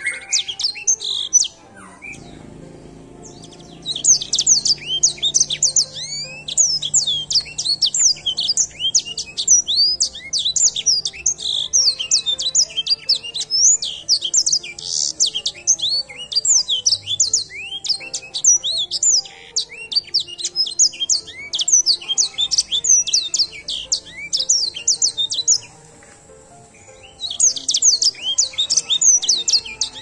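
Caged edel sanger (black-throated canary) singing a long, fast, high twittering song of quick down-slurred notes, breaking off for a second or two shortly after the start and again near the end.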